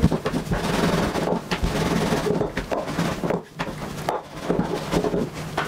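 Wooden rolling pin rolling out a thin circle of khinkali dough on a floured wooden tabletop, with uneven rubbing and light wooden knocks.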